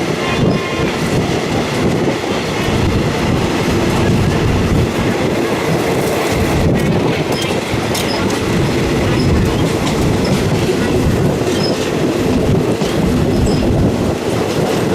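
Third-class carriage of a Thai ordinary train running along the line, its wheels rumbling steadily and clacking over the track, with occasional faint clicks.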